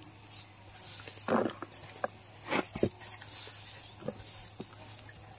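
Insects chirring in one steady, even high-pitched tone. Over it come a few short rustles and a tap as a gloved hand sorts ant eggs in a plastic pan.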